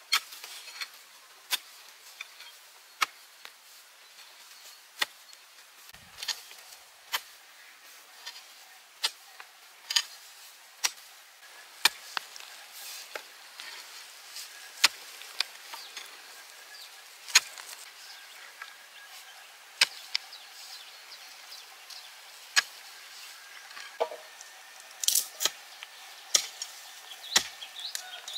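Sharp chopping strikes of a blade, irregularly spaced about one to two seconds apart, with a quicker run of strikes near the end.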